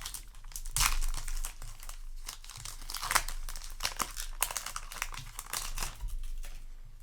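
Crinkling of a foil trading-card booster pack wrapper being handled and torn open, a dense, irregular run of crackles.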